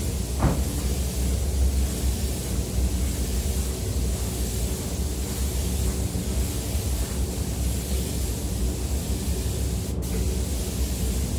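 Air spray gun hissing as quartz glass coating is sprayed onto a car's front grille, over a steady low rumble.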